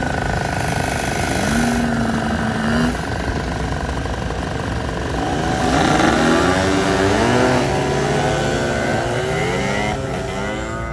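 Small engines of custom three-wheeled mini trikes running as they ride slowly past. Several engine notes overlap, rising and falling with the throttle through the middle.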